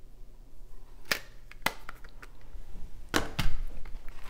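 Handling sounds from a metal watercolor palette tin and a nylon kit bag: a couple of sharp clicks, then a louder clatter of knocks with a dull thump about three seconds in.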